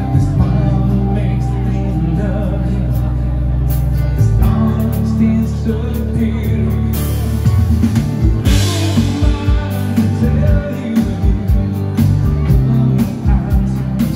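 Dansband music with singing over bass and guitar; a steady drum beat comes in about eight seconds in.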